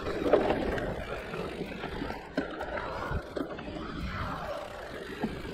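Electric mountain bike rolling fast down a leaf-covered dirt singletrack: steady tyre noise on the loose ground, with repeated sharp knocks and rattles from the bike over bumps.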